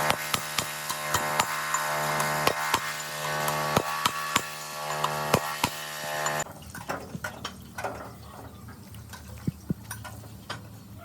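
A machine runs with a steady hum under frequent sharp metallic knocks and clinks of work on parts. The hum cuts off abruptly about six seconds in, leaving only scattered knocks.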